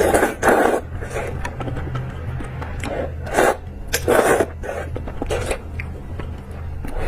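Close-miked eating: a run of short, irregular chewing and mouth sounds of someone eating eggs and noodle soup, over a steady low hum.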